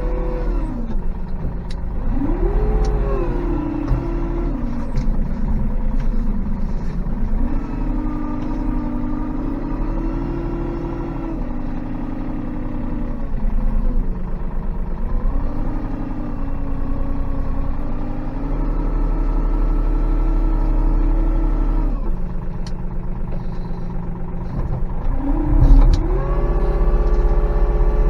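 Tractor engine running under load, its pitch rising and falling as it revs up and settles, over a heavy low drone.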